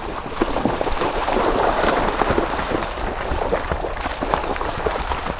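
Horses wading through a shallow stream, their hooves splashing and churning the water in many quick, irregular splashes, loudest in the first half.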